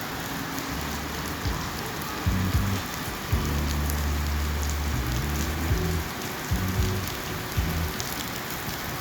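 Heavy rain pouring down and splattering on the street, a steady dense hiss. A low rumble joins underneath from about two seconds in and comes and goes.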